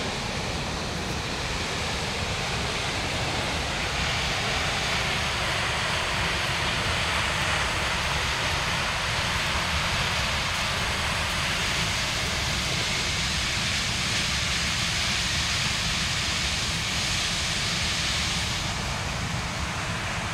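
A waterfall on a mountain river rushing steadily, a constant even noise of falling water. It grows a little louder about four seconds in and eases slightly near the end.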